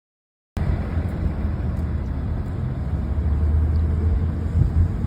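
Steady low rumble of a motor vehicle, starting abruptly about half a second in after silence.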